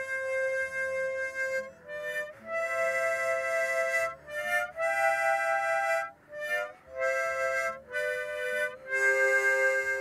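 Harmonica played slowly: long held notes and chords, with brief pauses between phrases.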